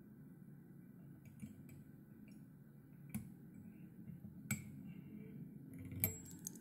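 Soft clicks and ticks of a metal whip-finish tool and the tying thread being worked around a hook in a vise while the finishing knot is tied, over a faint low hum. A few scattered clicks, with the sharpest near the end.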